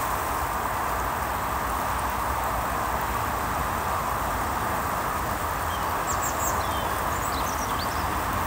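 Steady roar of distant motorway traffic, with a few short bird chirps about six to seven seconds in.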